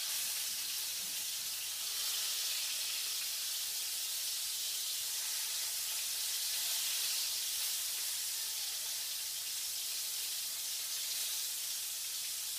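Flour-coated chicken breast pieces shallow-frying in hot oil in a frying pan, a steady sizzle.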